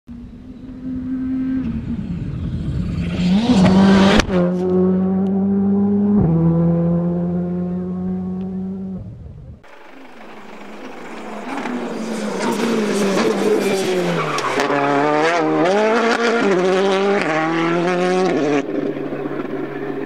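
Rally car engines at full throttle, revving high with quick gear changes that step the pitch up and down. The first car passes close with a sharp crack about four seconds in, then the sound cuts off abruptly halfway. A second run follows, its pitch climbing and dropping through several shifts.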